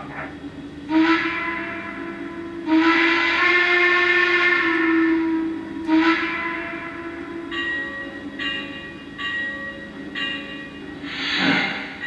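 The sound system of a Lionel Legacy N&W Y6b model steam locomotive blowing its steam whistle. It gives one long blast, softer for its first couple of seconds, then full for about three seconds. After that a ringing tone repeats about every three-quarters of a second, like the locomotive bell, and there is a short burst of hiss near the end.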